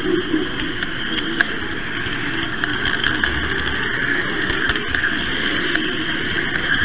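Model train running along the layout, heard from a camera riding on it: a steady whir of motor and wheels rolling on the rails, with a few sharp clicks.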